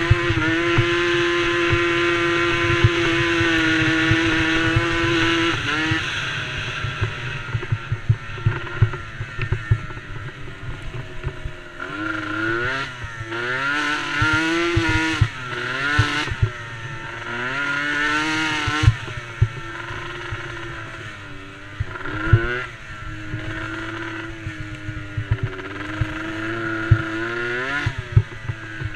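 Small engine of a DRR DRX90 youth race quad running hard, holding a steady high pitch for the first five or so seconds, then rising and falling again and again as the throttle is worked on and off. A low crackling rumble runs underneath.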